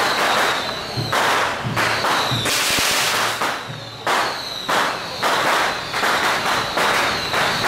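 Strings of firecrackers going off in rapid, dense crackling bursts, one after another, loudest about two and a half seconds in.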